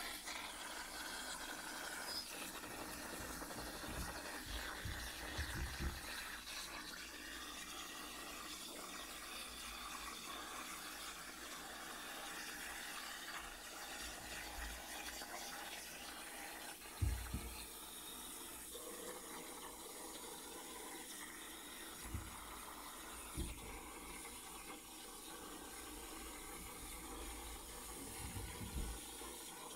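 CNC plasma cutter torch cutting steel plate over a water table: a steady hiss from the arc and air, with a few short low thumps along the way.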